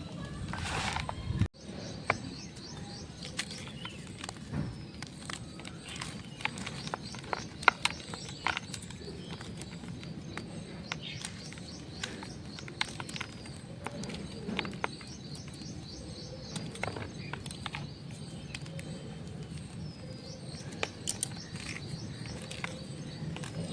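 Block of dyed gym chalk crunching and crumbling as it is crushed, with sharp, irregular crackles. Birds chirp faintly in the background.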